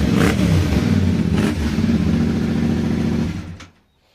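Yamaha Ténéré 700's 689 cc parallel-twin engine running through a Yoshimura slip-on exhaust with the dB killer fitted, revved briefly near the start and then idling. It is switched off about three and a half seconds in and the sound cuts out.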